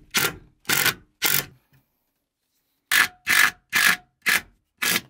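Short back-and-forth scraping strokes, three and then, after a pause of about a second and a half, five more, each lasting about a third of a second.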